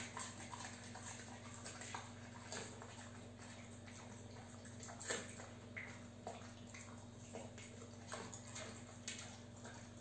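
Dog gnawing a hard chew treat: irregular clicks, knocks and scrapes of teeth on the chew and the chew against the floor, the sharpest about halfway through. Underneath runs the steady low hum and trickle of an electric pet water fountain.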